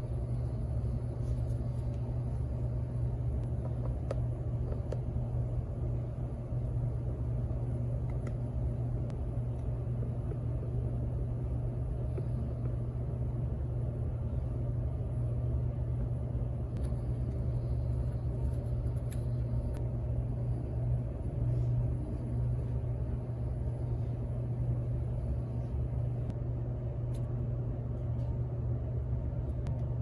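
A steady low hum of background machine or room noise. A few faint light clicks come from small metal and rubber parts being handled.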